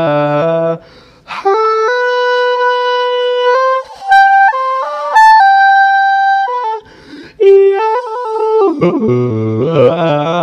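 Music: a reedy wind instrument plays a slow melody of long held notes, with short breaks between phrases.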